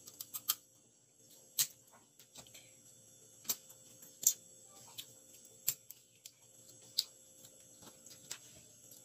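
Cooked crab being eaten by hand: shell cracking and crunching between teeth and fingers, in about ten sharp, irregular cracks with a faint steady hum behind.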